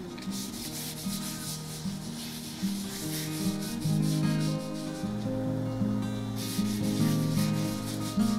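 A cloth rubbing linseed oil into the wood of an old spirit level in quick back-and-forth strokes, pausing about five seconds in and starting again. Soft background music with held notes plays underneath.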